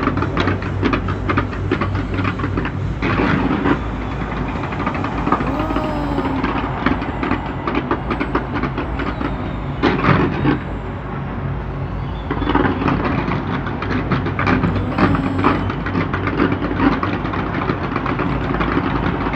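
Fireworks going off in dense salvos: a continuous rapid crackle of many small bangs, with heavier bursts about three seconds in and again about ten seconds in, over a steady low hum.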